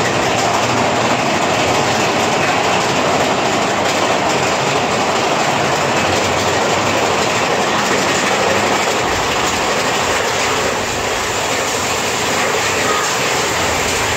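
Big Thunder Mountain Railroad's mine-train roller coaster running along its track: a loud, steady clattering rumble and rush of the cars in motion, easing slightly about eleven seconds in.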